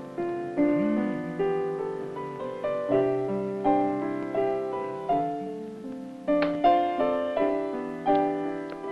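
Solo piano playing a slow, gentle tune: chords and single notes struck about every half second to second and left to ring out.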